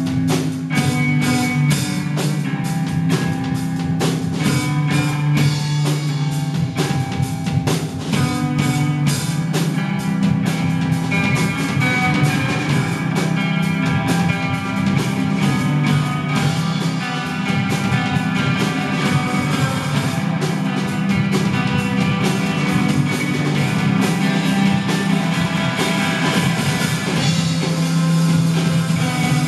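A two-piece rock band playing live: loud electric guitar and a drum kit with dense cymbal and drum hits.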